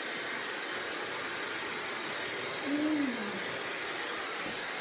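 Dyson hair dryer running, a steady hiss of blown air. About three seconds in, a short falling hum of a voice sounds over it.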